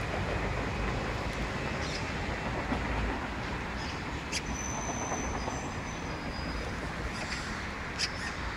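Steady low rumble of street traffic, with a faint high whine for a second or two around the middle and a few light clicks.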